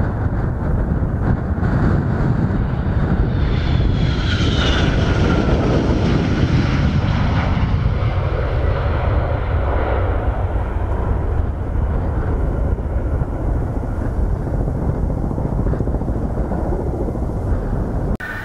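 Jet engine noise from a MiG-31's twin turbofans as the aircraft passes: a loud, steady roar with a thin high whine that falls in pitch about four seconds in. The sound then loses its high edge and settles to a duller low rumble as the jet moves away.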